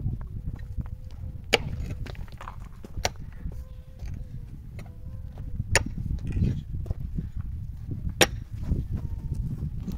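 Rocks knocking together in sharp clacks, four of them a couple of seconds apart, as stones are handled and set onto a stone-and-mud wall, over a steady low rumble.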